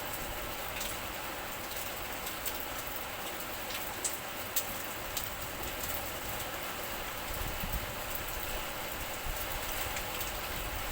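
Steady rain falling, an even hiss with scattered sharper drops ticking close by; two louder ticks come about four seconds in.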